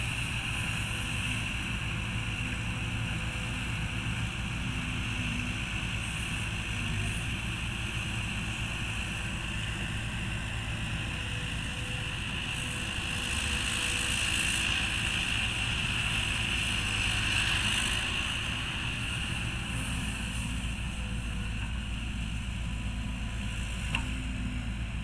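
Caterpillar 312B hydraulic excavator's diesel engine running steadily under working load while digging and loading soil, louder for a few seconds in the middle. One sharp knock near the end.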